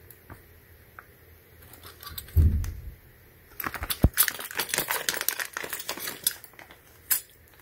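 Steel hot-air-gun nozzles clinking together inside a plastic zip bag as the bag is opened and handled: a fast run of clinks and crinkles from about three and a half seconds in, with a sharp knock near four seconds. A short low hum comes shortly before.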